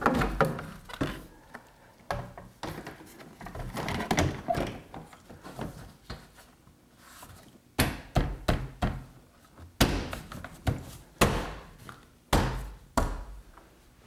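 Plastic upper cowl panel of a 2009 Honda Civic being seated at the base of the windshield: a series of knocks and thunks as its clips are pushed into their holes and the panel is pressed down by hand, the sharpest thuds coming in the second half.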